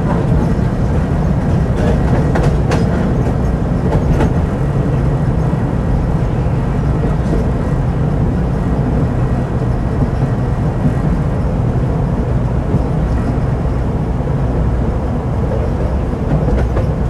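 Tram running along its track, heard from inside the car: a steady low rumble of the wheels on the rails and the rattling body, with a few sharp clicks in the first few seconds.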